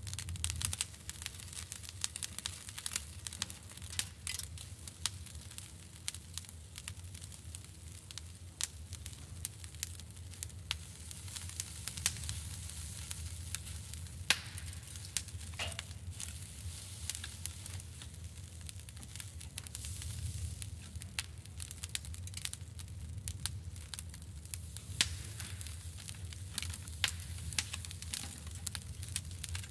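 Coiled sausage sizzling on a grill grate over glowing charcoal, with scattered sharp crackles and pops, over a low steady hum.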